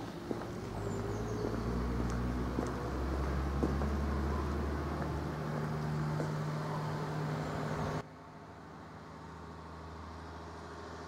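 A motor vehicle engine running with a steady low hum, its pitch lifting slightly partway through. About eight seconds in it cuts off abruptly to a much quieter outdoor background hum.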